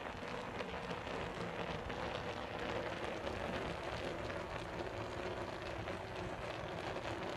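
Chicken in oily tomato sauce simmering in a steel pot on the stove: a steady crackling hiss.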